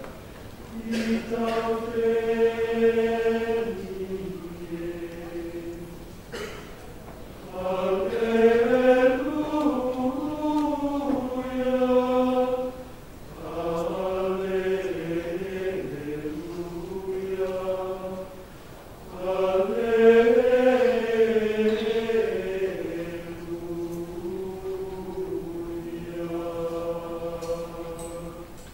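Men's choir singing Gregorian chant in unison, in long flowing phrases with short breaks between them.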